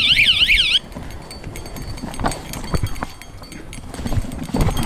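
Mountain bike rattling over a rocky trail: irregular knocks and clatters from the tyres, frame and drivetrain over a low rumble. In the first second a short high-pitched warbling sound rises and falls about five times, then stops.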